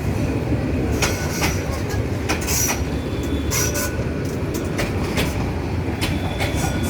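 Train moving along the tracks: a steady low rumble with irregular clacks of wheels over rail joints and a faint, thin squeal of wheels on the rails.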